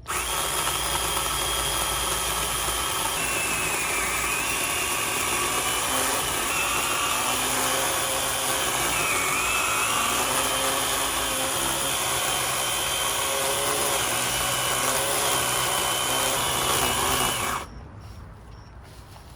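Battery-powered chainsaw running and cutting into a thick tree limb, its high motor whine dipping in pitch several times as the chain bogs in the wood, then stopping suddenly about 17 seconds in.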